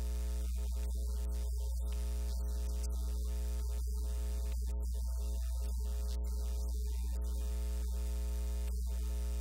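Steady electrical mains hum with a buzz of evenly spaced higher overtones, unchanging throughout; no speech comes through it.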